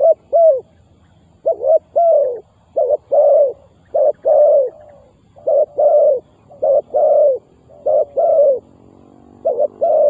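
Spotted dove cooing: a loud run of coos, each a short note followed by a longer note that falls in pitch, repeated about every second and a half.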